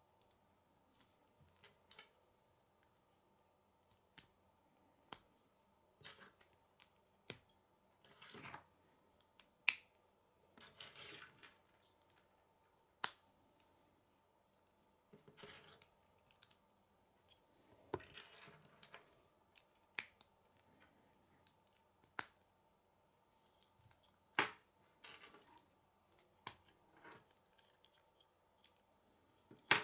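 K'nex plastic pieces being snapped together by hand: irregular sharp clicks as connectors clip onto rods and a wheel, with short plastic scraping and rustling between the clicks.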